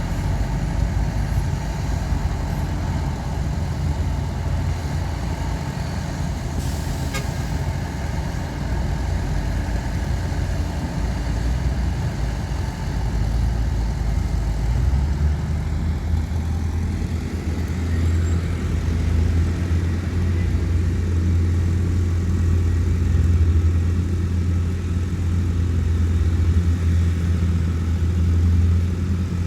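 Heavy diesel earthmoving machinery running steadily, a low engine drone that grows louder about halfway through.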